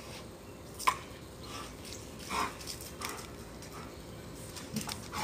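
Dogs making a few short, faint sounds, with a sharp click about a second in.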